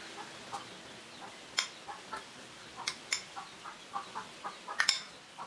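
Metal spoon clinking against a bowl and a steel pot as spiced yogurt is spooned onto cooking chicken: a few sharp clinks, two close together near the end. Faint short chirp-like calls sound in the background.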